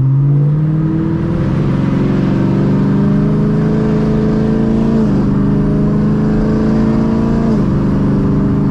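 V8 engine of a 6th-gen Camaro 1LE on an E85 tune, accelerating under load and heard from inside the cabin with the windows cracked. Its pitch climbs steadily, drops suddenly at an upshift about five seconds in, then climbs again and drops at a second upshift near the end.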